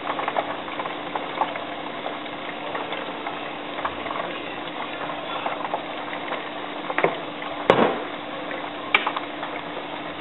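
Cooking oil crackling and sizzling in a frying pan on a gas stove, over a steady low hum, with a couple of sharper pops near the end.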